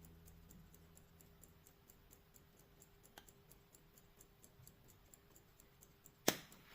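Mechanical pocket watch ticking softly and evenly, about five ticks a second, with one sharp loud click near the end.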